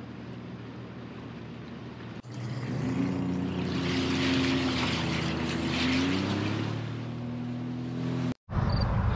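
Sea-Doo personal watercraft engine, heard from the rider's seat. It runs low and steady for about two seconds, then jumps to a louder run at speed across choppy water, its pitch rising and falling, with a rushing hiss in the middle part.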